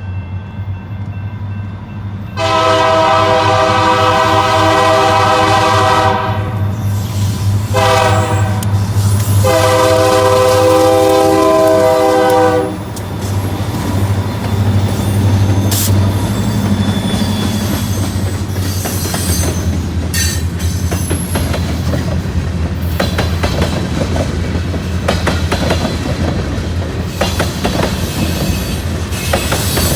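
Diesel freight locomotive's multi-tone air horn sounding a long blast, a short one, then another long one, in the pattern of a grade-crossing signal, over the engine's steady low drone. The train then rolls past with rail clatter, clicking wheels and some wheel squeal.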